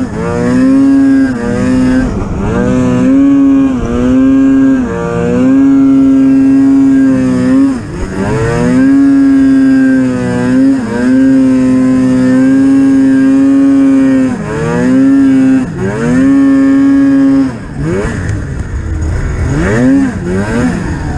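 Polaris Pro RMK 800 snowmobile's two-stroke twin engine running at high revs under throttle. It drops off and climbs back every second or two, with longer held stretches in the middle, then turns to lower, uneven revving with short rising blips near the end.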